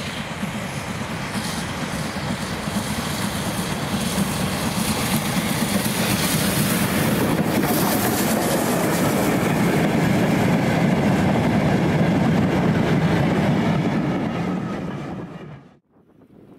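Steam-hauled train running past, growing steadily louder for about ten seconds, then the sound cuts off abruptly near the end.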